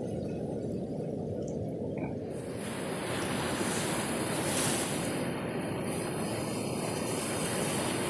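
Pacific Ocean surf breaking and washing up onto the beach. For about the first two seconds there is only a dull, low rushing; then the sound switches suddenly to the full hiss of the wash, swelling to its loudest a little past the middle.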